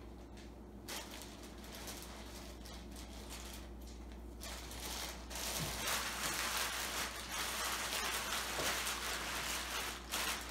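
Thin plastic zip-lock bag crinkling and rustling as hands gather and handle it, coming and going at first and louder and more continuous from about halfway through.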